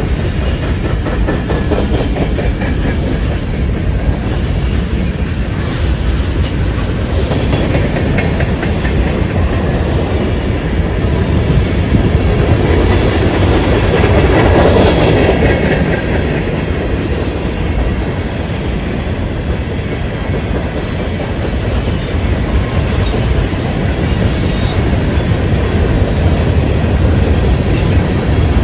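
Freight train rolling past, its cars' wheels clicking rhythmically over the rail joints over a steady rumble, swelling louder about halfway through.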